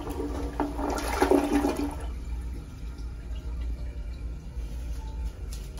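Kohler Cimarron toilet with a Highline Pressure Lite pressure-assisted tank flushing a bowl full of toilet paper. A loud rush of water ends about two seconds in, then quieter running water as the bowl refills.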